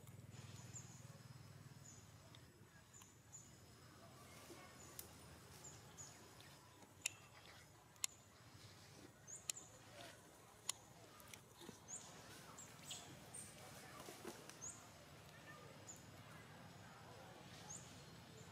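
Faint rustling and a few sharp snaps of dry twigs and leaves as macaques move and handle each other on the forest floor, most of them in the middle of the stretch, over repeated short high chirps about once a second.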